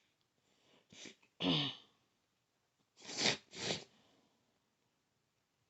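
A person sneezes about a second and a half in: a quick intake, then a loud burst with a voiced cry that falls in pitch. Two more short, sharp bursts follow close together a couple of seconds later.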